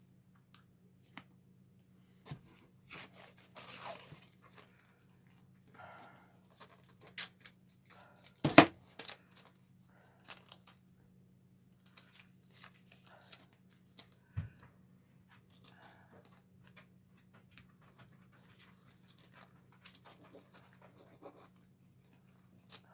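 Blue painter's tape being pulled off the roll and torn, with rustles and small clicks as it is pressed onto a popsicle stick and silicone mold; a sharp knock about eight and a half seconds in is the loudest sound. A low steady hum runs underneath.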